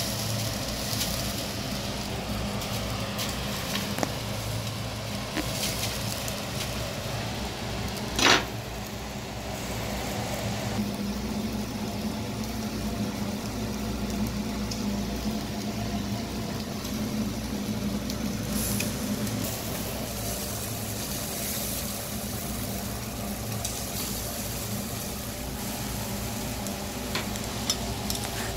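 Eel fillets sizzling and spitting on a wire grill over charcoal. A few light clicks from steel tongs handling the fish are heard, with one sharp knock about eight seconds in.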